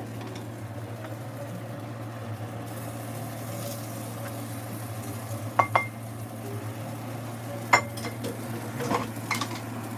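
Stainless steel skillet and metal utensil clinking against a cast iron pan as fried eggs are slid off onto the food: two short ringing clinks a little past halfway and a sharper knock a couple of seconds later. Underneath runs a steady low hum with faint sizzling from the hot pan.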